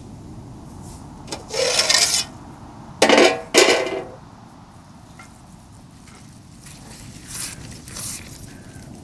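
A metal pot lid scraped off a large cooking pot, then set down on another pot with two ringing clanks a second later. Softer scrapes near the end as a wooden spatula stirs in the pot.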